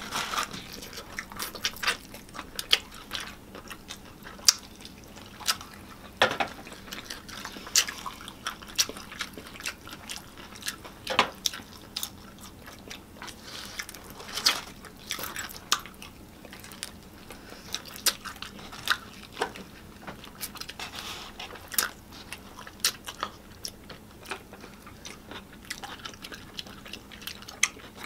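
Close-miked eating of Popeyes fried chicken: chewing and crunching, with many short, sharp crackles and clicks.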